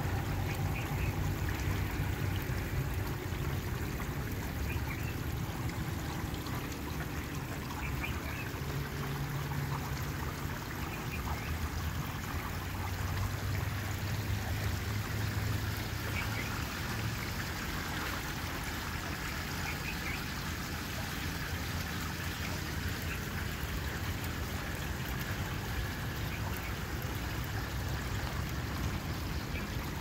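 Water trickling and splashing steadily from small stone tabletop fountains.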